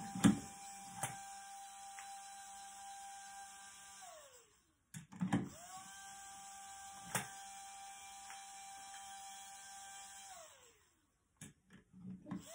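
Cooling fan motor of a Paslode gas nail gun spinning up to a steady whine, running about four seconds and winding down, then running again for about five seconds and winding down. A few sharp clicks from the tool sound over it, the loudest just at the start.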